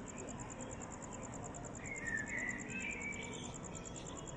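Steady, fast, high-pitched insect chirping, with a low background murmur and a brief wavering high call about two seconds in.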